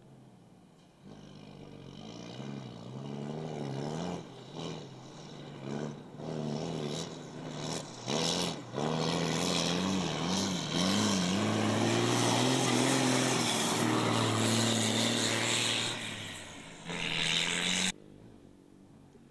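Rally truck's diesel engine working hard, its pitch rising and falling with throttle and gear changes as it approaches. It runs loudest and steadiest for several seconds in the middle, then cuts off suddenly near the end.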